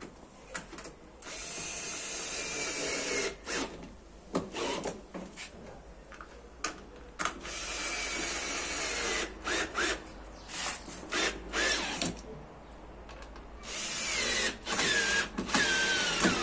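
Cordless drill-driver working screws on the front frame of a front-loading washing machine. It runs in three longer bursts with short trigger blips between them, and its motor whine slides down in pitch as it bogs and slows near the end of each run.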